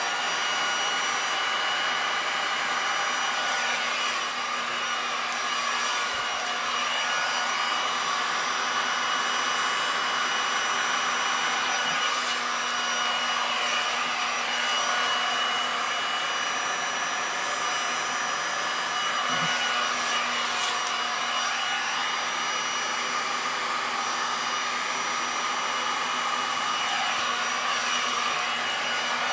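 Handheld electric air blower running steadily, a constant rushing whir with a steady hum in it, blowing wet epoxy resin across a tile.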